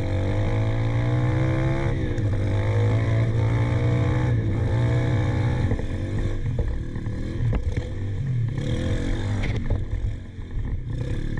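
Apollo RFZ Open 125cc four-stroke carbureted pit bike engine being ridden, its note rising and falling with the throttle. In the second half the note gets choppier, with a few sharp knocks from rough ground.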